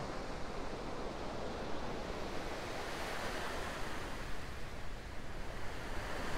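A steady, even rush of water noise, like an underwater or surf ambience, with no distinct events.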